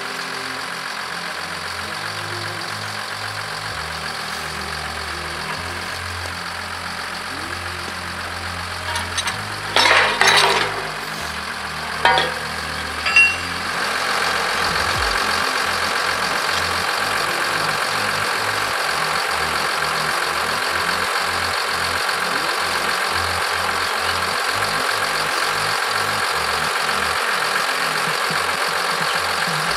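Diesel engine of the forestry machines idling steadily, with a cluster of loud knocks about ten seconds in and two more sharp ones a couple of seconds later. From about fourteen seconds the engine sound gets louder and stays so.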